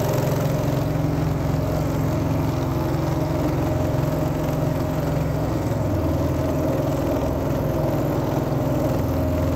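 Small engine at the stern of a wooden boat running steadily at an even speed, driving the boat across the lake.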